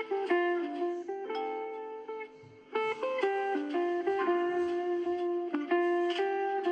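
A preloaded Samsung Galaxy A42 5G ringtone playing: a melody of plucked, guitar-like notes that breaks off briefly about two and a half seconds in, then carries on.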